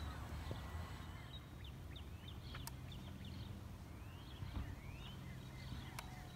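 Small birds chirping repeatedly in short, quick rising calls, over a faint low rumble of wind.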